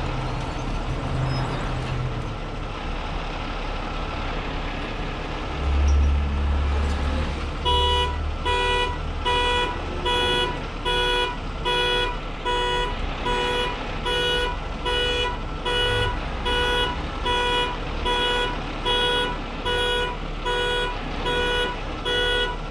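A heavy tow truck's diesel engine running, its rumble swelling for a couple of seconds about six seconds in. From about eight seconds in, a vehicle warning beeper repeats a steady electronic beep, about one and a half beeps a second.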